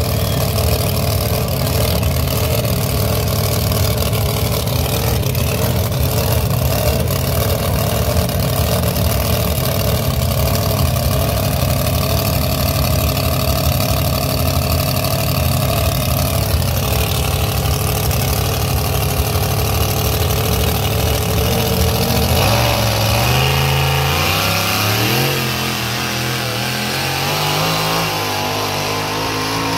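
Pulling pickup truck's engine rumbling at a steady loud idle while hooked to the weight sled, then revving up and pulling it down the track, its pitch climbing in several stages after about twenty-two seconds.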